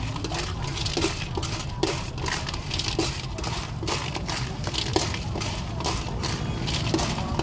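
A metal ladle stirring and scraping shellfish in their shells around a metal wok, the shells clattering against the pan with a sharper knock about once a second. A steady low rumble runs underneath.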